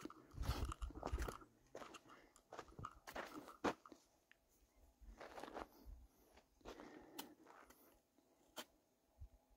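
Faint, irregular crunching footsteps on a dirt and gravel trail, with a brief low rumble about half a second in.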